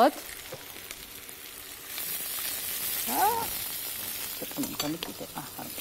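Stir-fry of green beans, carrots and mushrooms sizzling in a hot frying pan. The sizzle sets in about two seconds in and then holds steady.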